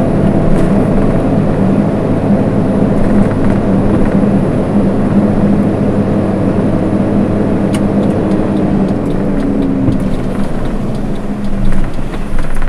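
Car engine and tyre noise heard from inside the moving car, running steadily and dropping slightly in pitch as the car slows down.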